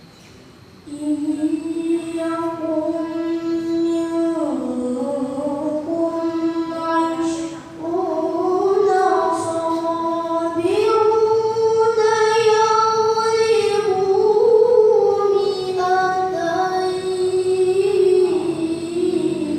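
A child's voice reciting the Quran in the melodic tilawah style, unaccompanied: long held notes that slide and waver in pitch with ornamented turns, starting about a second in.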